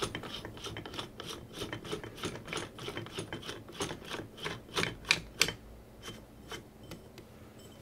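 Hands working the air bottle and fitted regulator cover of a Kral Puncher Jumbo air rifle during a test fit: irregular rubbing and scraping with a string of light clicks, a few sharper ones about five seconds in, then quieter.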